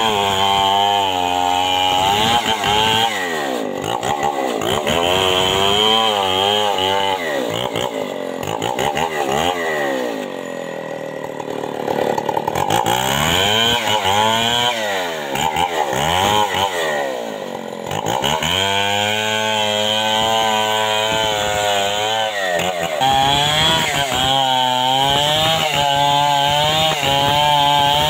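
Stihl two-stroke chainsaw ripping along the length of a log at full throttle, its engine pitch sagging and rising again and again as it cuts.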